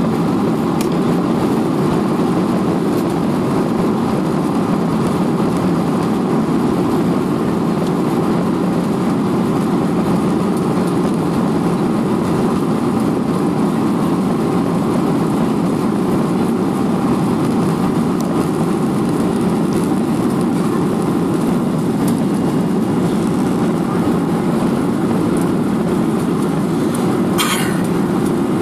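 Jet airliner engines and airflow heard from inside the cabin while the plane taxis: a steady, even rumbling hum that neither rises nor falls. A short brushing noise sounds near the end.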